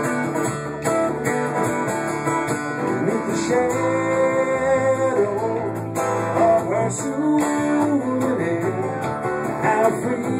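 Live rock band playing, led by guitars, strummed and picked, with long held notes that bend, about four to eight seconds in.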